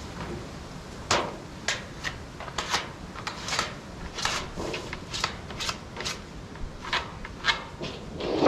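Irregular scraping, rubbing and light knocking of hand work, several short strokes a second, ending in a louder, longer scrape.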